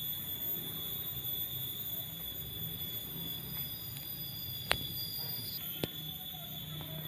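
Outdoor background of a steady high-pitched whine over a low hum, with a brief extra higher tone near the middle and two sharp clicks a little over a second apart.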